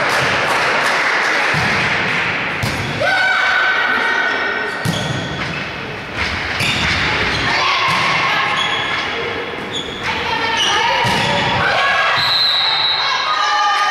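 Volleyball rally in a sports hall: the ball thumps off players' arms and hands about seven times, roughly every second or two, with players shouting between the hits. The hall echoes.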